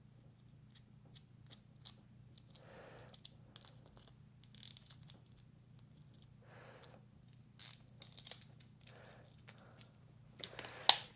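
Light clicks and clinks of small parts and hand tools being handled, with a few louder ticks and one sharp click near the end, over a low steady hum.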